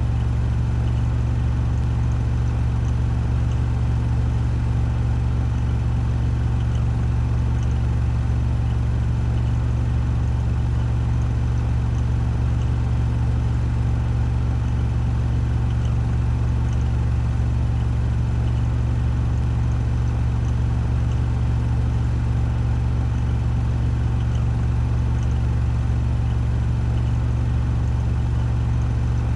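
Washing machine running its spin cycle at 1400 rpm: a steady, unchanging drone with a strong low hum.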